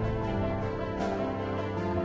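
Soft instrumental background music with sustained notes and light, evenly spaced accents.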